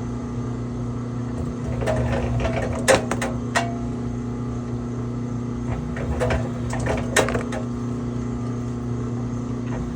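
1500-watt electric wire stripping machine running with a steady hum while scrap wire is fed through it, with bursts of clicks and knocks about two seconds in and again about six seconds in.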